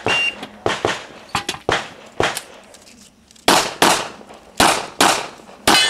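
A rapid string of handgun shots, some in quick pairs, each crack with a short echo. There are about fifteen shots in all, with a pause of about a second in the middle.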